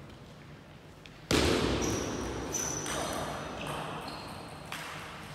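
Table tennis rally: the ball clicking off rackets and table, with short high squeaks like shoes on a sports-hall floor. A sudden loud burst about a second in is the loudest thing.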